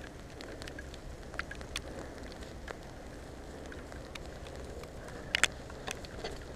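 Mountain bike rolling down a wet, muddy dirt singletrack: a steady rushing noise of tyres on mud with rain, broken by scattered sharp ticks and a louder double click about five seconds in.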